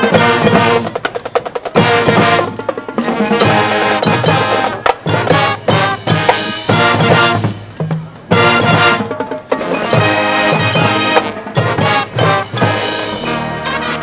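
High school marching band playing loudly, trumpets and trombones over drums, in punchy phrases broken by short pauses, with one near 8 seconds in.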